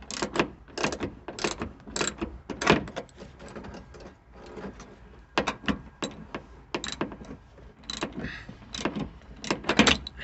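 Irregular metal clicks and clunks of hand tools and seat-belt hardware being worked as an anchor bolt is fitted, quieter for a moment around the middle and busier near the end.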